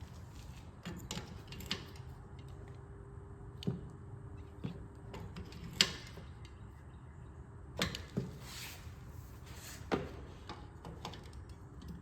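Irregular knocks and clicks, about ten of them, spaced one to two seconds apart, with the loudest a little over halfway through and again near the end, over a faint steady hum: tools and metal parts being handled while preparing a weld.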